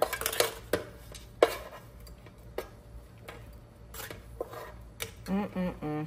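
A metal spoon scraping and clinking against an air fryer basket and a bowl as cooked broccoli is scooped out, in scattered knocks. The loudest knock comes about a second and a half in.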